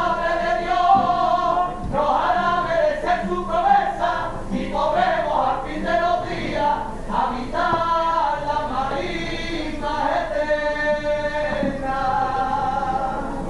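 Unaccompanied singing of a slow, ornamented melody, with long held notes that waver and bend between pitches.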